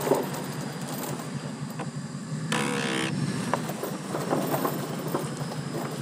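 Flatbed car trailer, loaded with a wooden utility pole and chains, being towed slowly over rough grassy ground, its deck and load rattling and knocking. A brief, louder rasp comes about halfway through.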